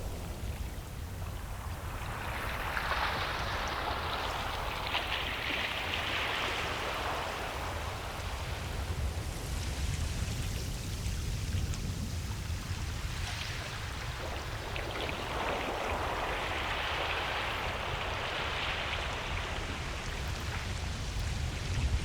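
Ocean waves breaking and washing up a beach: two surges of hiss, the second about twelve seconds after the first, over a steady low rumble of surf.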